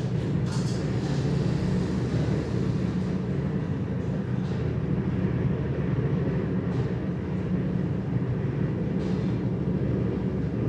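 Steady low hum and rumble of continuous background noise, even in level throughout, with a few faint brief higher sounds over it.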